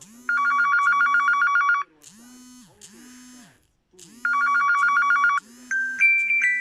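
Huawei P30 Lite ringtone: a fast electronic trill imitating an old telephone bell, played in two rings about three seconds apart. Near the end a different ringtone with chiming single notes begins.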